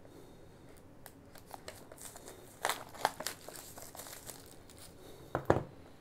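Packaging crinkling and tearing as an Apple AirPods 2 retail box is unwrapped and opened: scattered crackles and rustles through the middle, then a sharp double knock near the end.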